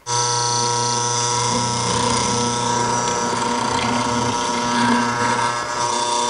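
Benchtop hollow-chisel mortising machine with a 1/4-inch chisel bit, its motor running steadily while the chisel is plunged into a hardwood door stile to cut haunched mortises.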